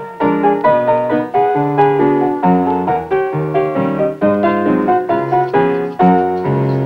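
Background music: a piano tune played briskly, with notes and chords struck several times a second.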